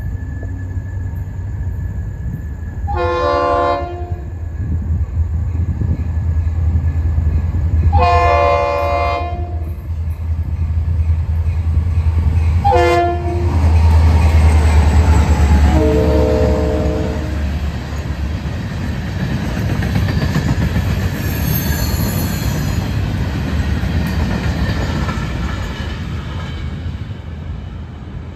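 EMD GP40-2 diesel locomotive's horn sounding the grade-crossing signal: two long blasts, a short one, then a last long blast that sounds lower after the locomotive passes. The locomotive's diesel engine rumbles loudest as it goes by. Empty gondolas follow with steady wheel clatter and a brief high wheel squeal.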